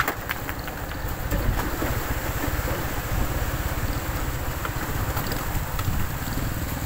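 A small motorcycle engine running while riding along a dirt road, with wind buffeting the microphone.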